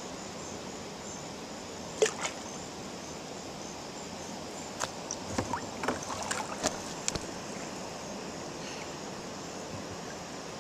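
Kayak paddling on calm water: a steady wash of water, with light knocks and clicks of a paddle against plastic kayak hulls, one about two seconds in and a cluster a few seconds later.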